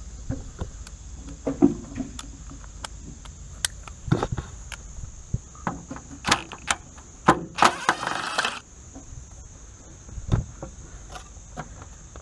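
Cordless DeWalt 20V MAX XR drill-driver runs for about a second, driving a screw through a downspout strap into the siding. Scattered clicks and knocks from handling the drill and strap come before and after it.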